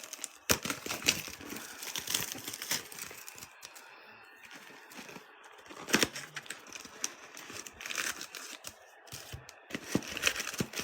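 Cellophane shrink-wrap and foil card packs being torn open and crinkled by hand, an irregular crackling with a few sharp snaps.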